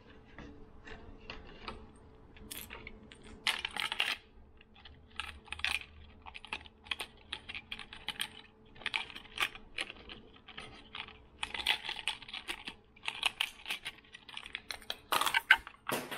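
Fishing lures and their plastic packaging handled by hand: an irregular run of small clicks and crinkles, with the loudest crinkle of plastic shortly before the end.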